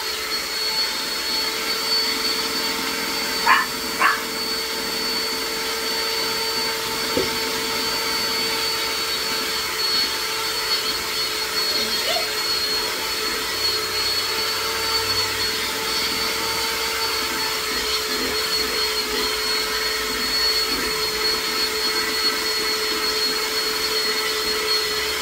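Handheld electric mixer running steadily, its beaters whipping a thick seafoam candy (divinity) mixture in a glass bowl, with a steady motor whine. A small dog yips twice about three and a half seconds in.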